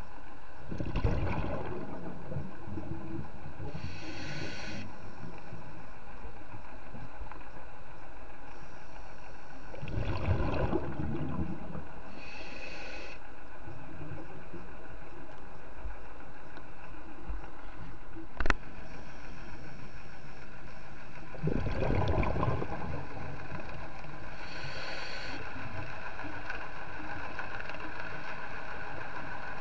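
Scuba diver breathing through a regulator underwater, slow and even. Each breath has a short high hiss of inhalation and a low burst of exhaled bubbles, three breaths in all, over a steady underwater hiss. A single sharp click comes about two-thirds of the way through.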